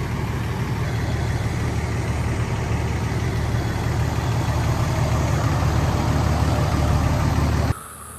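Engine idling steadily with a deep low running sound, which cuts off abruptly near the end.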